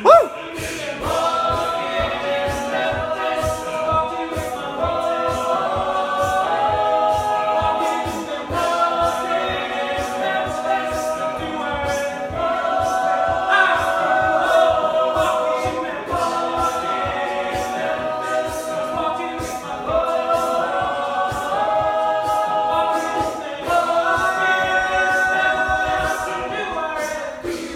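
Male a cappella group singing in close harmony, with a steady ticking beat kept up over the chords. A brief loud bump sounds right at the start.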